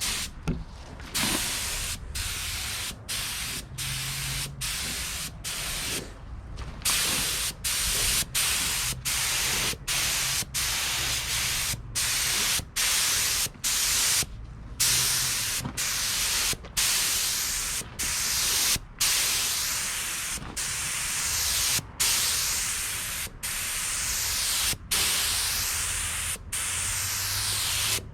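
Compressed-air paint spray gun hissing as it lays paint in repeated passes, the trigger let off briefly between strokes. The strokes come about every half second to second at first and lengthen to about a second and a half each in the second half.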